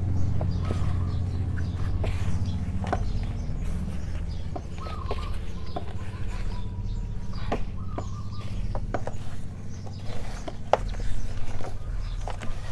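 Gloved hands stirring and scrunching a dry potting mix of soil, cow manure and tamarind shell in a large plastic tub: irregular rustling and crackling with scattered sharp clicks, over a steady low hum.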